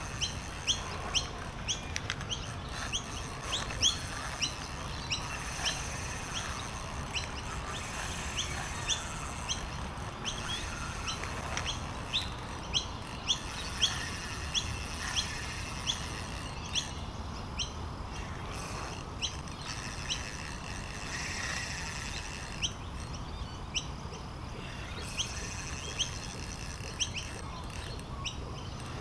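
Birds chirping: many short, sharp high chirps, coming irregularly and at times two or three a second, over a steady background chorus and a low rumble.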